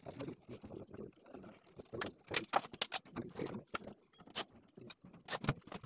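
Sharp metallic clicks and knocks of a stainless-steel wire kitchen basket being handled and fitted into a cabinet's slide channels. There is a cluster of them about two seconds in, a single one a little past the middle and a few more near the end.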